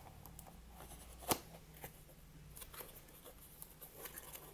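Faint cardboard and paper handling as a kit box is opened by hand, with scattered small rustles and one sharp click a little over a second in.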